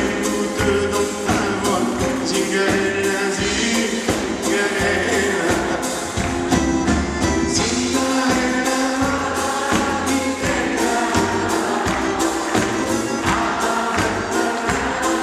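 Live band music with a male lead singer: acoustic guitars and hand drums playing a lively song with a steady quick beat.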